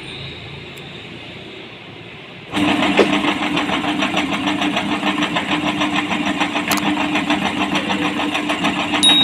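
Electric meat grinder motor running, starting abruptly about two and a half seconds in with a steady hum and rapid, even pulsing.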